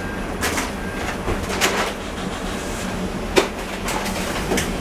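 Inside an M29 tram standing at a stop with its doors open: a steady low hum from the tram under street noise coming in through the doorway, with several sharp clicks or knocks, the loudest about three and a half seconds in.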